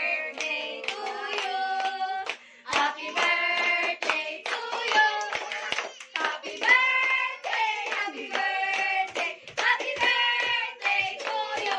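Several voices singing together, with hand clapping throughout.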